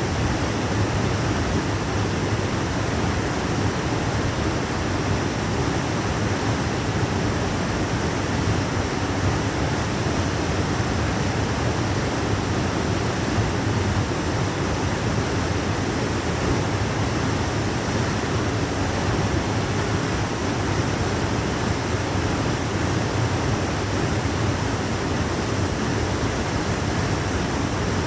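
Waterfall, a steady rush of falling water with a deep low rumble and no change throughout.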